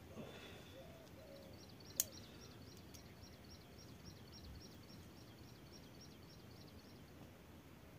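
Faint outdoor quiet with a bird's high, rapid chirping call repeated about four to five times a second for several seconds. A single sharp click comes about two seconds in.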